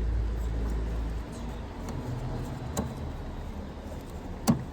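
Handling noise and short plastic clicks as the electrical plug is pushed back onto a headlight bulb, with a low rumble at first and one sharp click near the end.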